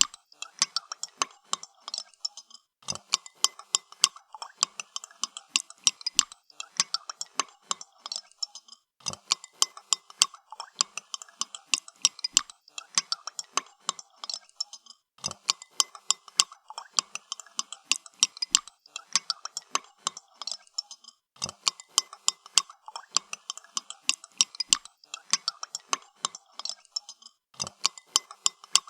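A spoon stirring coffee in a cup, clinking against the side of the cup in a quick, steady run of ticks, with a short pause about every six seconds.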